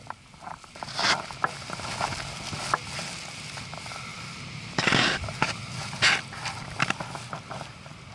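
Footsteps and body movement of a person scrambling over rock and grass: irregular knocks and scrapes with clothing and gear rustling close to the microphone, in louder surges about a second in and again around five to seven seconds in.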